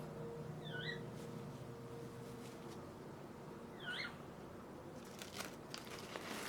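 Pet parrot giving two short chirps a few seconds apart, each dipping and then rising in pitch, with a few sharp clicks near the end.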